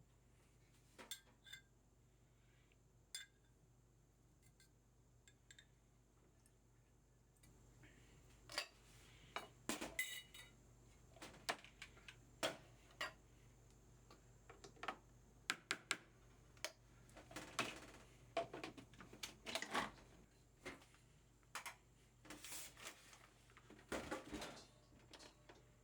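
Kitchen utensils clinking and scraping against dishes: a few sparse clicks at first, then a busier run of irregular clinks from about a third of the way in.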